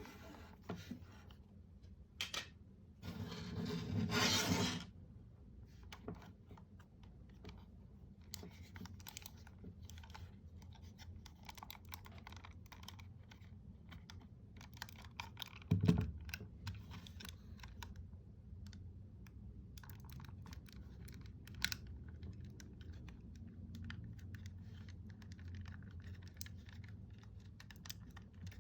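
Small clicks, taps and scrapes of hard plastic from handling and working on a computer mouse, with a longer scraping rustle about three seconds in and one louder knock about halfway through.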